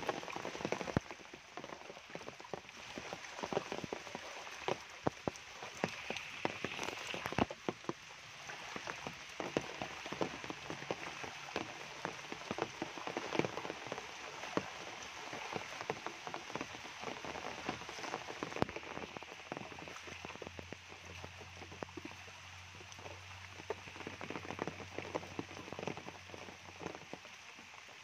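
Steady rain falling, with many close raindrops striking sharply and irregularly over an even wash of rain noise.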